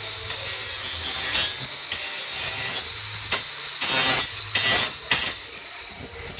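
Electric angle grinder running with a steady high whine, its disc grinding against a ceramic tile in gritty, uneven passes. The scraping is loudest around four and five seconds in.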